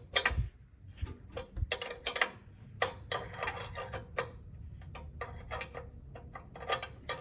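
Ratchet socket wrench clicking in short bursts with light metal clinks, a 9/16 socket working the nuts that hold the mule drive on a Craftsman GT18 garden tractor.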